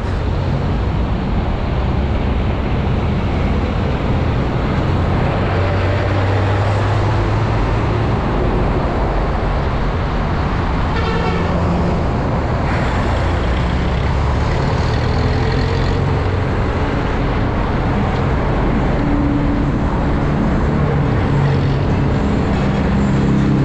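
Road traffic heard from a moving bicycle: passing jeepneys and cars give a steady engine hum under constant wind rush on the microphone. A brief horn toot comes about eleven seconds in.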